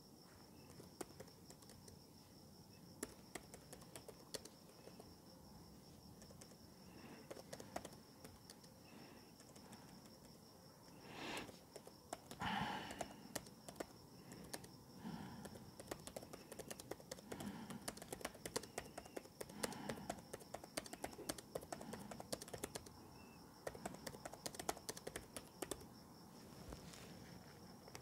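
Typing on a laptop keyboard: quick, irregular key clicks that come thicker in the second half. Behind them is a steady high chirring of crickets, and there is a brief louder breathy sound about twelve seconds in.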